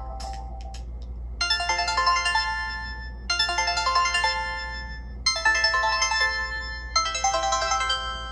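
Nokia Lumia 1520 ringtone on Windows Phone 8. The last notes of one tone die away in the first second. About a second and a half in, a new ringtone starts: a short melodic phrase repeated about every two seconds, four times.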